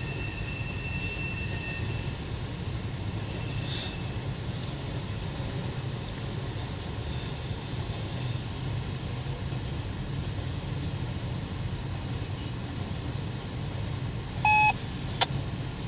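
CN freight train rolling past, a steady rumble of wheels on the rail joints and car bodies. About a second before the end a short, loud beep sounds once.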